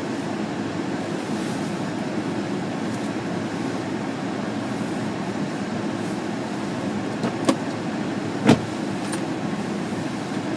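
Steady road and tyre noise inside the cabin of a 2005 Honda Pilot while driving, with two sharp knocks about a second apart near the end.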